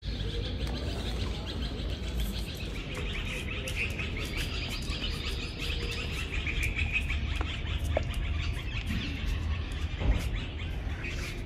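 A chorus of small birds chirping steadily over a low rumble of outdoor background noise, with a few faint ticks.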